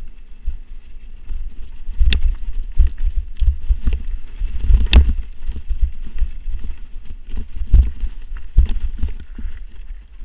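Mountain bike riding fast down a dirt forest trail: steady wind rumble on the microphone, with sharp knocks and rattles as the bike hits bumps. The loudest knock comes about five seconds in, and the noise eases off near the end.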